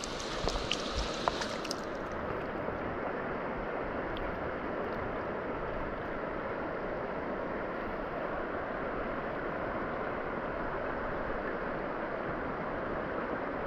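Stream water rushing steadily around the angler, with a few light clicks in the first two seconds.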